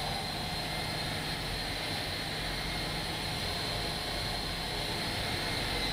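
An L-39 Albatros's turbofan engine idling while taxiing, heard inside the cockpit as a steady rush with a high, thin whine.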